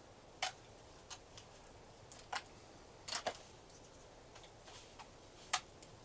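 Faint, sharp clicks and taps at irregular intervals, about seven in six seconds, the loudest about five and a half seconds in.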